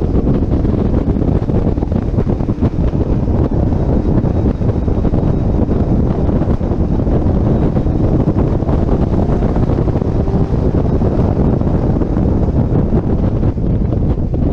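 Heavy wind buffeting on an externally mounted camera's microphone at track speed, over the steady running of a C6 Corvette Z06's LS7 V8.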